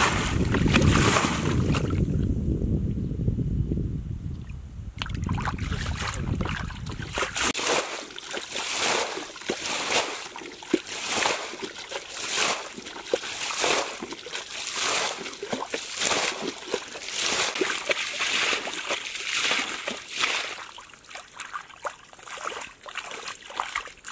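Muddy water scooped up and flung out of a shallow pool with a plastic bowl, in a steady rhythm of splashes a little faster than one a second. For the first seven seconds or so, wind rumbles on the microphone under the splashing.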